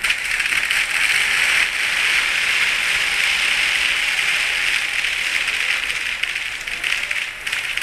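A string of firecrackers going off in a rapid, continuous crackle for about seven seconds, thinning out near the end.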